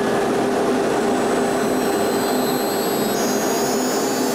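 CNC router spindle running at a steady speed with a constant whine, over the hiss of dust extraction at its brush dust shoe. About three seconds in, higher whines rise and shift as the gantry moves the head.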